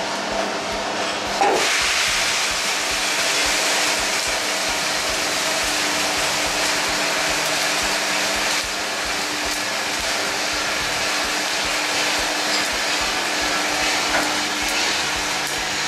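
Freshly roasted coffee beans pouring out of a drum roaster's door into its stainless cooling tray with stirring arms: a steady rushing rattle that starts suddenly about a second and a half in, over the roaster's steady machine hum.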